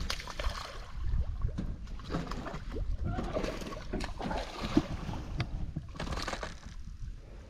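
Hooked butterfly peacock bass splashing and thrashing at the water's surface in short, irregular bursts, over a steady low rumble.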